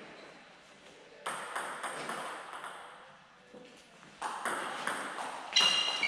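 Table tennis ball clicking. A few light bounces come about a second in. From about four seconds in, a rally starts and the ball ticks off the bats and table about four times a second. A brief high squeak comes near the end.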